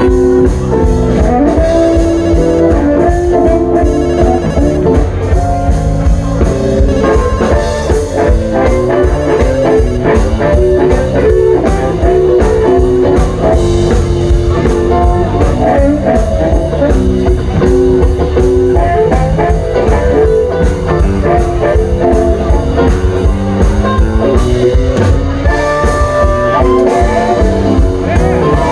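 Live blues band playing an instrumental passage: guitar over a drum kit's steady beat, with held, bending notes.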